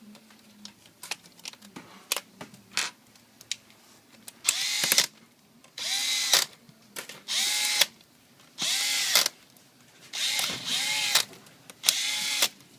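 Small cordless electric drill-driver driving screws in short bursts, about six times, each one spinning up and winding down. Before that, a few sharp clicks of small parts and the driver being handled.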